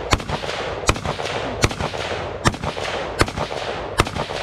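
Gunfire: a steady string of six sharp shots, about one every 0.8 seconds, with fainter shots from other shooters between them.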